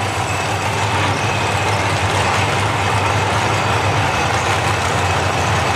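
Drag-racing street car engine running loud and steady: a constant low drone with no revving up or down.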